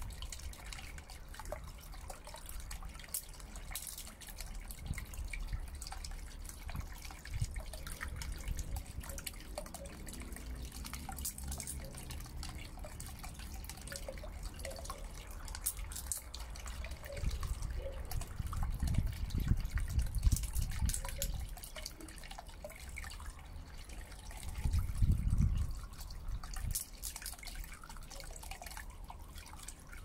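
Small submersible fountain pump jetting water up in a shallow tray, the jet splashing and dripping back onto the water surface in a steady patter of droplets. Twice, a bit past halfway and again later, a louder low rumble swells up under the splashing.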